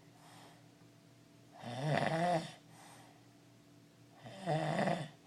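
A man snoring in his sleep: two loud snores about two and a half seconds apart, each just under a second long, with faint breaths between them.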